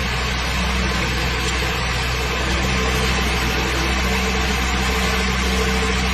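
Car engine idling steadily, a constant low hum with no distinct belt squeal standing out.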